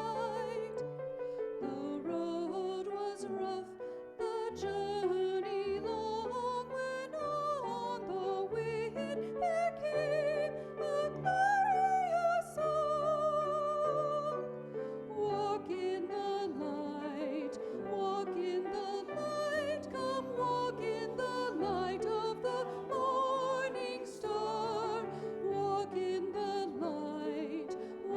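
A Christmas song sung with wide vibrato over sustained accompanying chords, with the melody rising and falling in long held notes.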